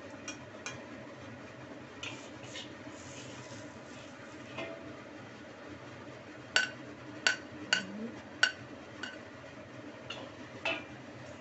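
Metal spatula scraping and clinking against a wok and a ceramic plate as fried noodles are dished up. There are a few light scrapes early on, then a run of sharp clinks about two a second past the middle, over a faint steady hum.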